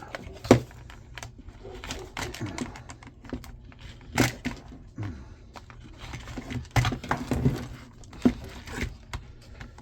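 A hand tool working at a stubborn nut or bolt inside an opened jump-starter pack: irregular clicking, scraping and clattering of metal against metal and plastic, with a few sharp knocks, the loudest about half a second in. The tool keeps slipping because it is not a proper socket or wrench.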